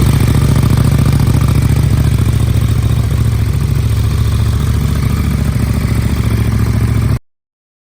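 KTM 1290 Super Duke R's V-twin idling through an aftermarket Akrapovič titanium exhaust, a loud, steady pulsing beat. It cuts off abruptly about seven seconds in.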